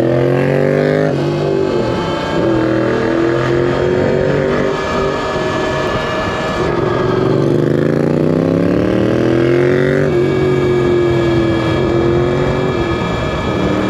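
Yamaha FZ-07's parallel-twin engine accelerating through the gears: its pitch climbs, drops suddenly at each upshift (about four times), and climbs again, over a steady rush of wind.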